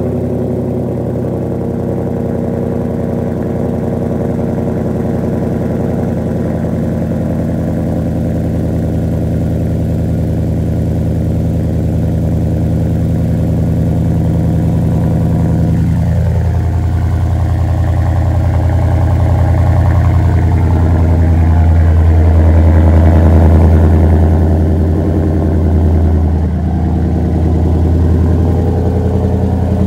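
A 2018 Ford F-150 idling just after a cold start, heard at the tailpipe through a Flowmaster Outlaw series aftermarket exhaust. The idle drops a little about halfway through and again near the end.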